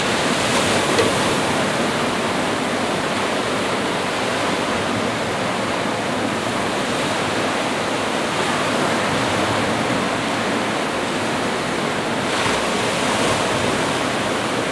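Small waves breaking and washing up a sandy beach: a steady surf hiss with a gentle rise and fall.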